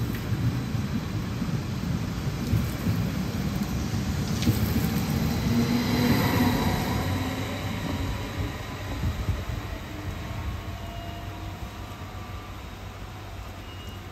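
A train passing: a low rumble that grows louder to a peak about five or six seconds in, then fades as it moves away, with faint whining tones above it.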